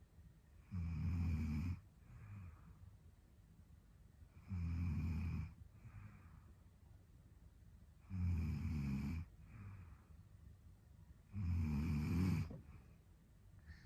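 A sleeping woman snoring in a steady rhythm: four low, rattling snores about every three and a half seconds, each followed by a softer breath.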